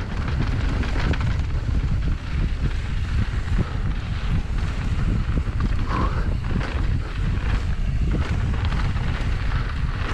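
Wind buffeting the microphone of a mountain bike descending fast on a dirt jump trail, with constant clattering and rattling from the bike and tyres over rough ground. A brief higher-pitched squeal about six seconds in.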